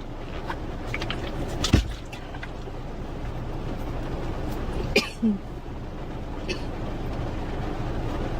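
Steady background rumble broken by a sharp knock about two seconds in and a brief short sound about five seconds in, with no coughing.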